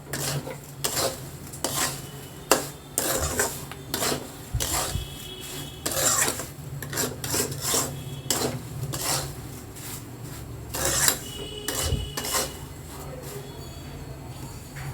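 Spatula scraping and stirring sooji (semolina) in a kadai, in repeated rasping strokes, as hot water is worked in a little at a time.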